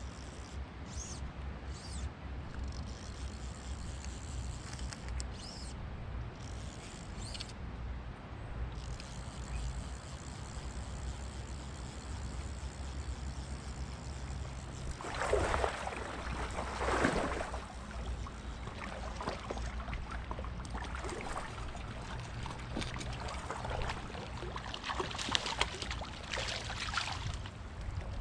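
Water splashing in two bouts, about halfway through and again near the end, over faint flowing water and a steady low hum.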